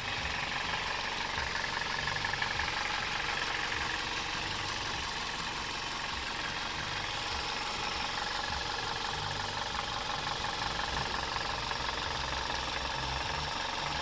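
A Toyota Corolla's 1.6 VVT-i inline-four petrol engine running steadily at one speed, with a strange noise in it that the owner is trying to show. The noise has a steady hiss and rattle in the upper range and an uneven low flutter underneath.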